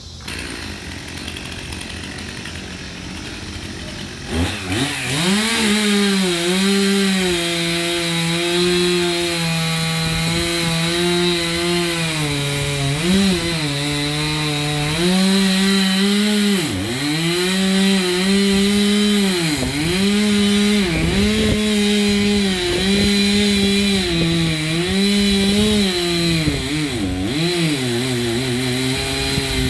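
Chainsaw revving up about four seconds in, then running at high throttle as it cuts wood, its pitch dipping briefly several times.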